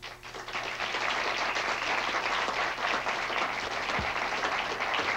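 Studio audience applauding, the clapping swelling up in the first half second and then holding steady.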